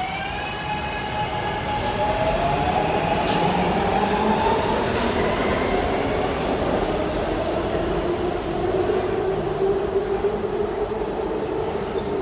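Subway train's traction motors whining, rising in pitch as it accelerates over the first few seconds, then running steadily along the rails with a held tone over a continuous rumble.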